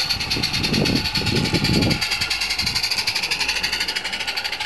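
16mm-scale live-steam locomotive chuffing with a rapid, even exhaust beat and a steady hiss as it passes. A low rumble sits under it for the first two seconds.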